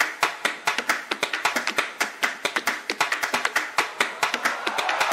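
A fast, irregular run of sharp clicks or taps, about ten a second.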